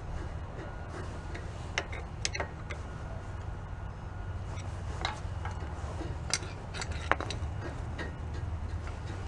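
A handful of light metallic clicks and taps, spread irregularly over several seconds, as a brake caliper is worked down over new brake pads with a screwdriver, over a steady low hum.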